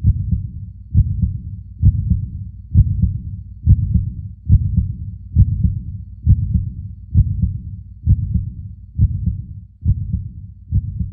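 A mother's heartbeat as a baby hears it before birth: low, muffled thumps at a steady pace of a little more than one a second, each strong beat trailed by a softer one.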